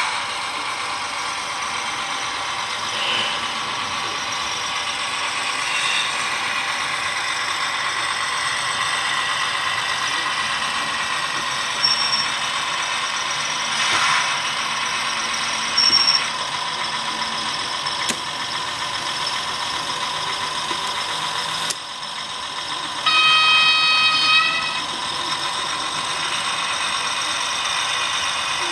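HO-scale model of a Plasser & Theurer track tamping machine (Viessmann) running along the track, its small electric motor and gears whirring steadily. Two short high beeps come about halfway through, and later a horn sounds for about a second and a half.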